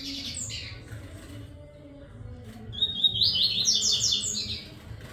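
Male double-collared seedeater (coleira) singing its courtship song to a female: a short burst of notes at the start, then a longer fast twittering phrase about three seconds in.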